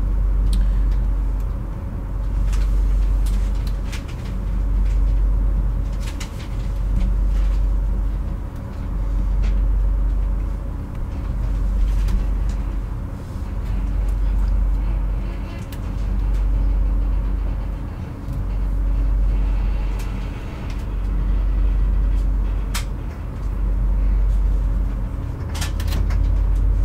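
Low rumble of a Metronom double-deck train heard from inside the coach, swelling and fading about every two seconds, with occasional short clicks.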